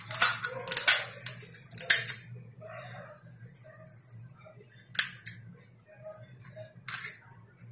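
Crisp fried puri shells being cracked open by hand for filling, giving sharp crackles: a cluster in the first two seconds, then single ones about five and seven seconds in, with soft spoon-and-filling sounds between.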